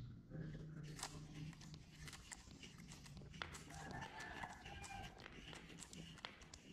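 Marbles clicking against each other and against a cardboard feeder as they are let go one at a time onto a modeling-clay track, making a run of light, irregular clicks. About four seconds in, a faint wavering sound with a clear pitch lasts about a second.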